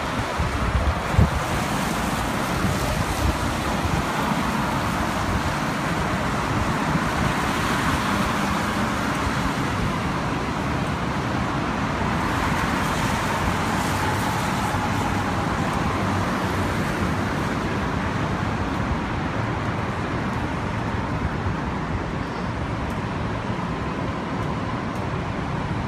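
Steady traffic noise from cars on the wet freeway alongside, with a few gusts of wind on the microphone in the first seconds.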